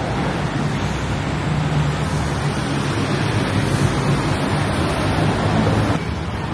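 Traffic on a busy city road: a steady rush of passing vehicles with a low engine hum, easing a little about six seconds in.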